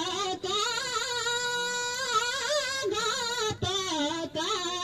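A solo voice singing a Thadi Bhaka, a Nepali folk song of the Karnali region, in a wavering, ornamented melody, with short breaks between phrases.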